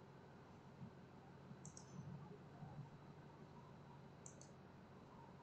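Faint computer mouse clicks, a quick double click about a second and a half in and another just over four seconds in, over a low steady room hum.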